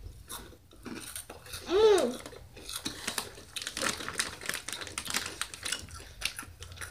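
Crunchy spicy snack chips being chewed with mouths open: a dense run of quick crackling crunches, thickest in the second half. A short rising-then-falling voice sound about two seconds in.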